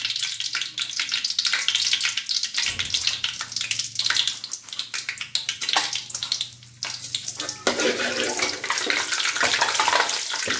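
Tempering spices frying in hot oil in an aluminium kadai: a steady crackling sizzle of many small pops.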